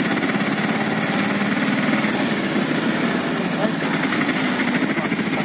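Small motor vehicle engine running steadily with a fast, even pulse, heard from a vehicle moving through a street, with faint voices in the background.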